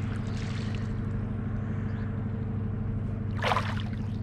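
Steady low drone of a motor ship's engine machinery running across the water, with a short splash of water near the end.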